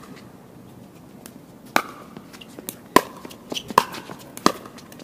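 Pickleball rally: paddles striking the hard plastic ball with sharp pops. There are four main hits, starting about two seconds in and coming roughly once a second, with the loudest near the end.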